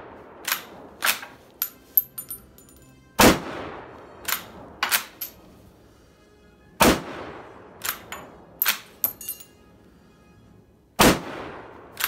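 Three shots from a Steyr Mannlicher M1895/30 straight-pull rifle firing 8x56mmR rounds, three to four seconds apart, each followed by a few sharp metallic clacks as the straight-pull bolt is cycled for the next round. The old ammunition fires on each pull, with no hang-fire.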